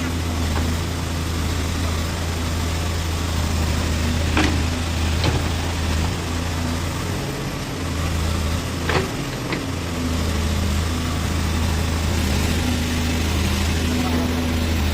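Backhoe loader's diesel engine running steadily with a low hum, with a few short sharp knocks, two about four seconds in and two more about nine seconds in.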